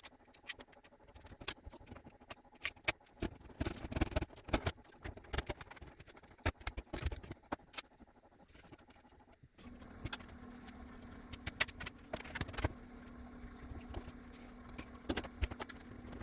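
Refrigerator shelves and bins being handled during cleaning: scattered clicks, knocks and scrapes. About halfway through, a steady low hum starts abruptly.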